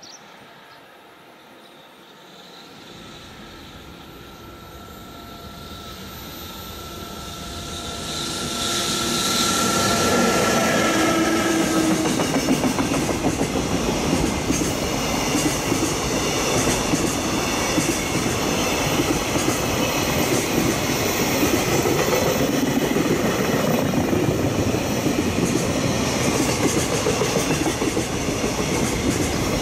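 A container freight train hauled by an EF65 electric locomotive approaches, growing louder over the first ten seconds, with a thin whine as the locomotive draws near. Its container wagons then pass close by in a loud, steady rumble with wheel clatter over the rails.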